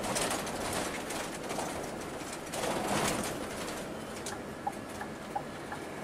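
Road and engine noise inside a moving Scania K360 coach, swelling and easing a few times. From about four and a half seconds in there is a light, regular tick roughly every two-thirds of a second.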